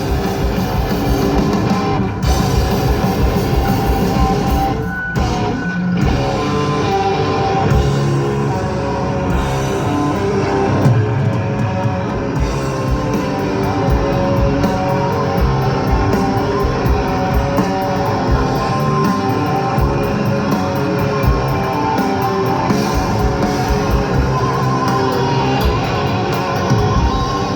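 Death metal band playing live at full volume: heavy distorted electric guitars and bass over fast drums, with a couple of very short breaks about five seconds in.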